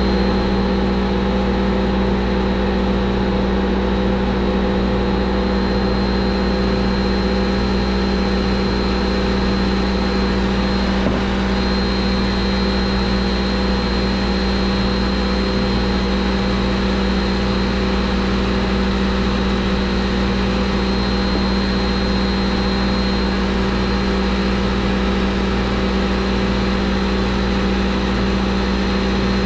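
Steady drone of plant-room machinery: a constant low hum with a thin, steady high whine over it, unchanging throughout.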